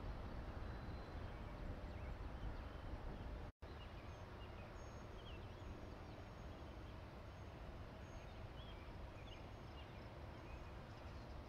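Outdoor background noise with a steady low rumble and faint, scattered bird chirps. The sound cuts out for an instant about three and a half seconds in.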